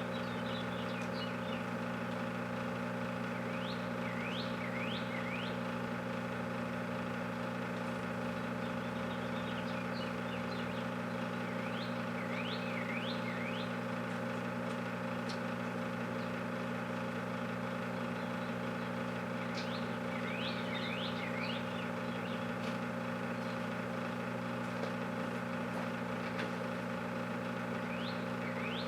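Microwave oven running with a steady electrical hum while a whole watermelon cooks inside. A bird chirps in short high phrases several times.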